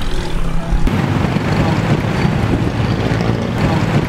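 A road vehicle passing close by, a loud steady rumble that starts suddenly about a second in.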